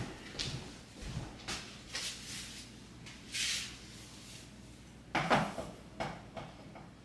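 A tripod light stand being handled and set up: scattered clicks and knocks as its sections and legs are moved, a short swish about three and a half seconds in, and the loudest knock a little after five seconds.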